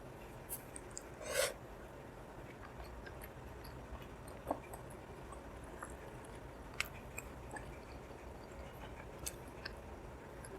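Quiet, wet chewing of syrup-soaked gulab jamun, with scattered short mouth clicks and smacks; the loudest comes about one and a half seconds in.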